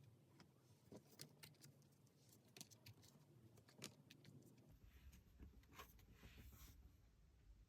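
Faint, scattered clicks and taps of tarot cards being handled and laid down, with a low rumble and soft hiss coming in about five seconds in.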